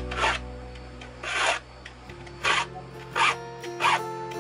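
Steel file rasping across the teeth of a hand saw to sharpen them, in about five short, separate strokes.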